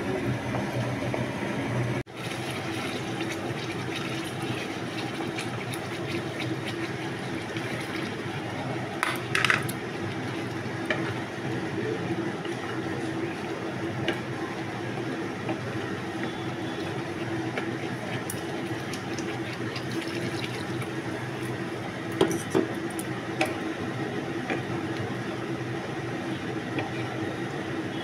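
Egg curry gravy simmering in a nonstick pan, a steady bubbling sizzle, with a few brief knocks about 9 s and 22 s in.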